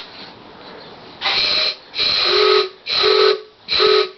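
Wooden train whistle blown with compressed air from a trigger blow gun, in four short blasts starting about a second in. Each blast opens as a rush of air hiss, and the whistle's steady chord comes in partway through. The first blast is mostly hiss.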